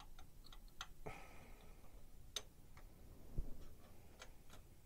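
Light clicks and taps of hard plastic model-kit parts being handled and pressed together as the main undercarriage leg of a 1/32 scale Revell He 111 is fitted into its wheel well. Scattered small clicks, a brief rustle about a second in, and a single louder soft knock about three and a half seconds in.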